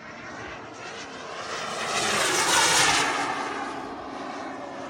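Kingtech 140 turbine of a Carf BAE Hawk model jet making a flyby: a rushing jet noise that swells to its loudest about halfway through and then fades, its whine sliding down in pitch as it passes.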